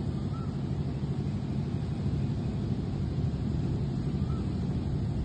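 Steady low rumbling noise, with a faint short chirp twice.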